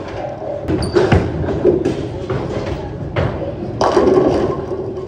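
Bowling ball crashing into the pins at the end of the lane, with the pins clattering as they scatter, starting a little before four seconds in. Earlier, about a second in, there are sharp knocks and a deep thump.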